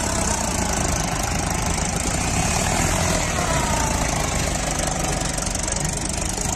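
Mahindra 475 DI tractor's four-cylinder diesel engine running steadily under load as it pulls a fully loaded double-tyre trolley of sand across soft ground.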